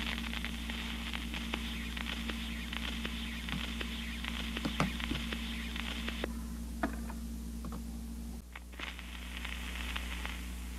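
1950s Bozo children's phonograph playing bare record groove after the music ends: steady crackle and hiss of record surface noise over a low hum, through its own small speaker. A few clicks come from the tonearm being handled. The hiss drops away about six seconds in, the hum changes about two seconds later, and the crackle returns as the stylus settles on the next record.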